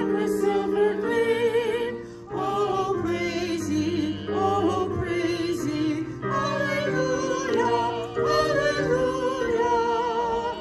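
Voices singing a song with vibrato, accompanied by an electric keyboard playing held chords; there is a brief break between phrases about two seconds in.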